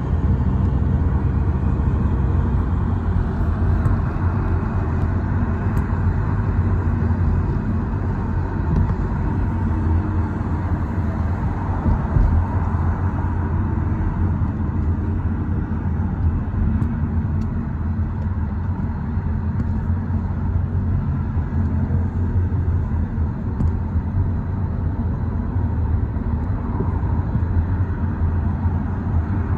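Steady road noise of a car travelling at highway speed, heard from inside the cabin: a constant low rumble of tyres and engine with a lighter hiss of wind.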